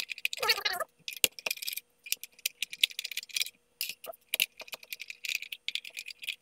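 Small screws being backed out of a bench multimeter's plastic case and handled: a run of light, irregular metallic clicks, scrapes and small rattles.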